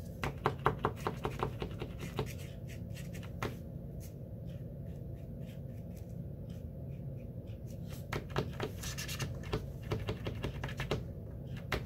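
A new Posca paint marker being primed: a quick run of sharp clicks as the tip is pumped against the paper to start the paint flowing, a quieter stretch, then a second run of clicks near the end.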